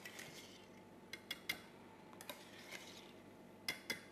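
Wire balloon whisk gently folding a creamy parfait mixture in a stainless steel bowl: soft swishing through the cream with metal clinks of the wires against the bowl, a quick run of three about a second in, another a little later, and two near the end.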